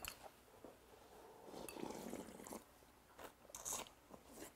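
A person quietly sipping and slurping cold soybean-paste broth from a bowl, then slurping a spoonful near the end; soft wet mouth sounds.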